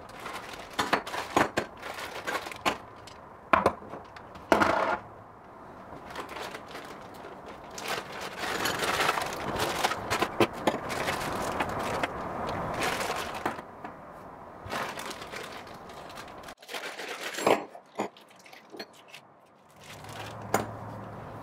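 Plastic zip bags crinkling as they are handled and opened, with brass tubes and small metal fittings clicking and knocking as they are set down on a workbench.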